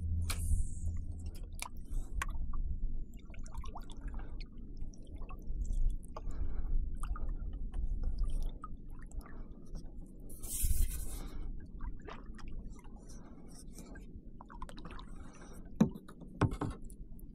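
Water sloshing and dripping around a kayak, with soft swishes every second or so and scattered small knocks and clicks on the hull. There is a short hissing splash about ten seconds in.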